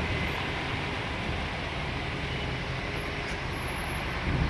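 Steady road traffic on a busy city street, a constant wash of passing car, bus and lorry noise.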